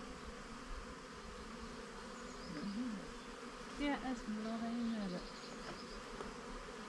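Honeybees buzzing around an open hive while its frames are lifted out: a steady hum from the colony, with two louder buzzes that rise and fall in pitch partway through as bees fly close.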